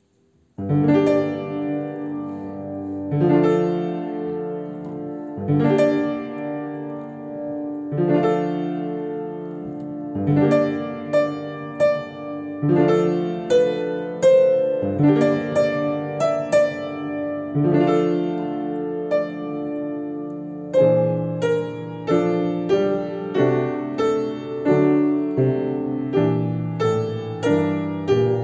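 Upright piano playing a song's accompaniment on its own, without the voice part. It opens with held chords struck about every two and a half seconds, moves into busier figures from about ten seconds in, and from about twenty seconds in plays quicker repeated chords.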